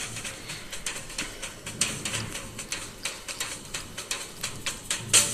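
A rapid, irregular run of sharp clicks or taps, several a second, growing louder near the end.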